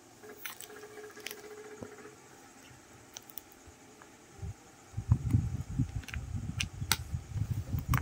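Plastic shrink wrap and tape on a cylindrical tub being handled and cut with scissors: scattered crinkly clicks and snips. From about halfway in, dull low thumps and rubbing from the tub being handled grow loudest.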